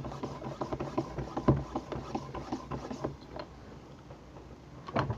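Pump inflating a basketball: irregular clicks and knocks from the pump and the ball for about three seconds, quieter after that, then one sharp knock near the end.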